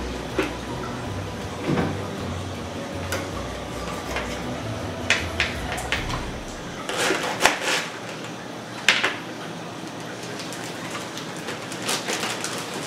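Scattered sharp knocks and clinks of a knife, utensils and dishes on a kitchen counter, a few every couple of seconds, over a low hum that stops about eight seconds in.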